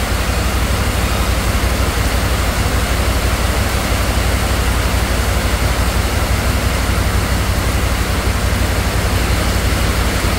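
Heavy rain pouring down steadily: a dense, even hiss with a deep rumble underneath.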